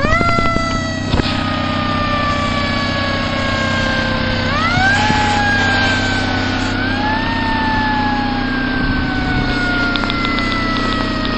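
Emergency siren winding up quickly and then slowly falling in pitch. It winds up again about four and a half seconds in and once more near seven seconds, over a steady low engine hum.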